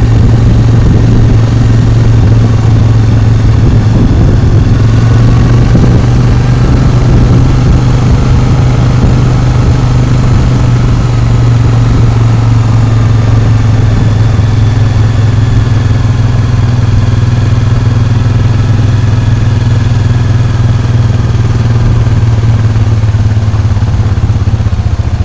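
A vehicle engine running steadily and loud while driving along at a constant pace, a low even drone with no change in speed.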